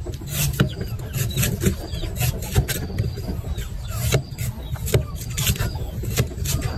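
A large knife chopping and slicing the soft husk of a young green coconut: a quick irregular series of sharp cuts, about one to two a second. A low steady rumble runs underneath.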